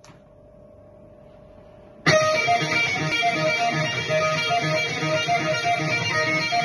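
Low steady hum, then about two seconds in loud rock music starts abruptly, led by a repeating electric guitar riff.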